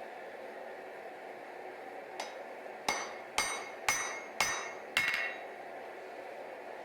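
Hammer blows on hot damascus steel at the anvil: one light tap, then five ringing strikes about two a second, over a steady background noise.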